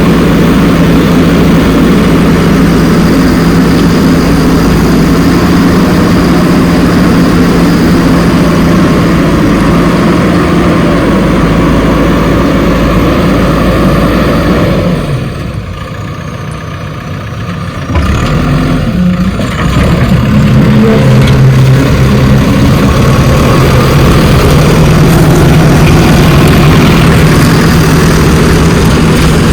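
Heavy diesel engine of earthmoving machinery running steadily. It drops away for a few seconds around the middle, then comes back with a slightly different pitch.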